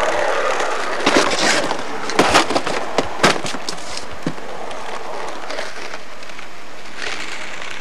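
Skateboard wheels rolling on asphalt, with a run of sharp clacks and knocks from about one to three and a half seconds in as the wooden deck hits the pavement.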